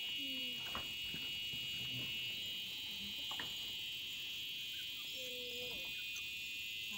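A steady chorus of insects, crickets or cicadas, chirring without a break, with a few short, low calls from another animal now and then.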